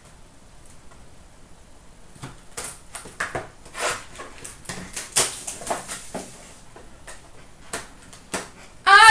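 A cardboard trading-card box being cut open and handled: a string of short scrapes, rustles and clicks of cardboard and plastic wrap.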